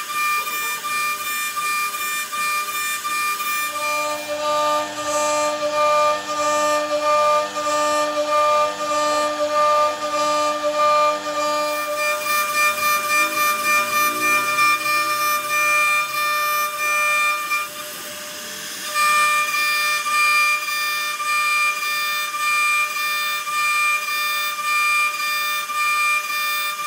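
CNC router spindle whining at a steady high pitch while cutting wood, with a pulsing rise and fall in level. The whine drops away briefly about two-thirds of the way through, then returns.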